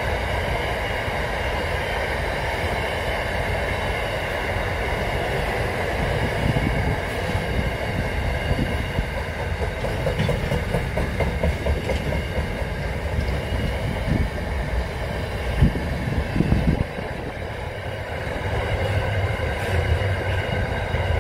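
Container freight train wagons rolling past close by: a steady rumble of steel wheels on the rails with a ringing hum over it. A few heavy low thumps come about fifteen to seventeen seconds in.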